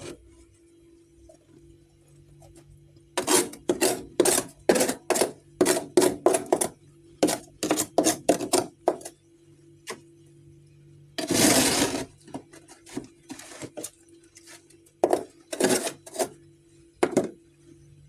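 Chunks of freezer frost being bitten and crunched: a quick run of about a dozen sharp crunches, then a longer, louder noisy scrape partway through, then three or four more crunches near the end. A faint steady low hum runs underneath.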